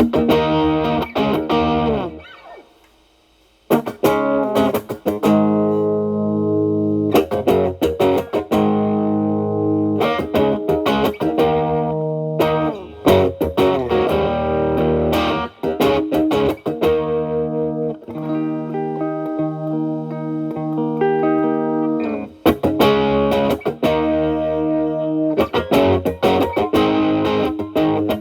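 Telecaster electric guitar played through an E.W.S. Brute Drive (BD-1) distortion pedal into a Marshall Valvestate amp on its clean channel. With the pedal's gain set low and the guitar's volume rolled back, the drive is cleaned up to a light crunch. Ringing chords and picked notes are played, with a brief stop about two seconds in.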